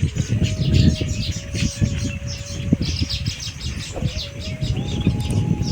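Many small birds chirping and twittering, with an uneven low rumble of wind buffeting the microphone. A faint steady tone sits underneath, stepping up in pitch near the end.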